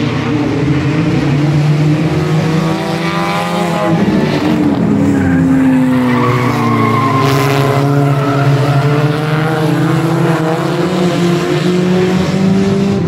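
A pack of small stock-car-class sedans racing through a turn on a short asphalt oval, several engines running at once at racing speed. Their pitch rises and falls as the cars come past about halfway through.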